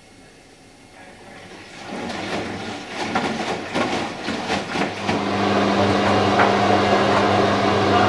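AKAI front-loading washing machine: the drum turning with water and laundry sloshing and knocking, starting quiet and growing louder. About five seconds in, a loud steady machine hum sets in and holds.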